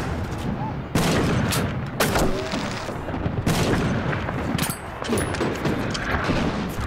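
Battle gunfire: repeated sharp rifle shots over a dense background of further shots and booms, with a loud shot about a second in and another about two seconds in.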